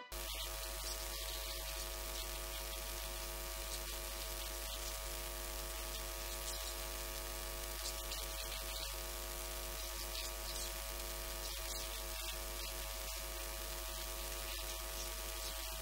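Steady electrical mains hum with hiss, a stack of even buzzing tones that holds at one level throughout.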